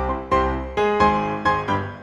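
Background music: a piano melody of single struck notes, about two a second, each dying away before the next.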